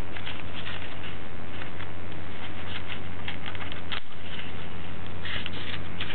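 Folded paper rustling and crinkling in short scratchy strokes as hands pull open and shape an origami paper model, over a steady low hum.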